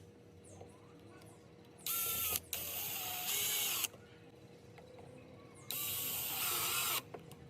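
Power drill-driver running in two bursts of about two seconds and a second and a half, driving a screw back into a door hinge. Each burst starts and stops suddenly.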